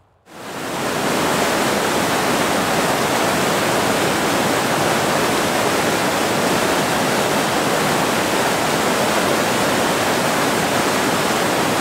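White-water river rapids rushing over rocks, a steady, even roar of water that fades in during the first second.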